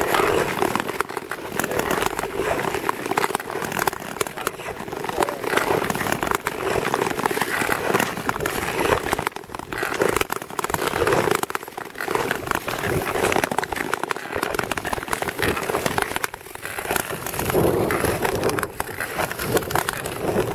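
Blades of Nordic touring skates scraping and gliding over clear lake ice, the scrape swelling and fading with each stride.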